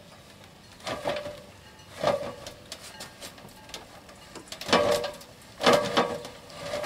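Heavy lead-acid battery in a plastic case being lowered on a line down an aluminium extension ladder, scraping and creaking in five short bursts about a second apart, each with a brief metallic ring.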